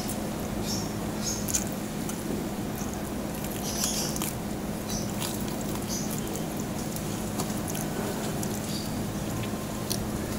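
Chewing crispy deep-fried pork knuckle (crispy pata), with scattered crunches of crackling and wet mouth clicks, the largest cluster about four seconds in, and the crisp skin being torn apart by hand. A steady low hum runs underneath.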